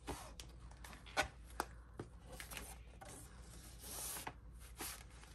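A paper planner being worked into its cover: rustling of pages and cover with scattered light taps and clicks, and a longer rustle about four seconds in.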